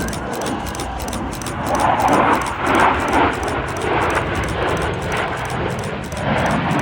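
Aircraft engine noise at an airshow, a steady rushing that swells louder and unevenly about two seconds in.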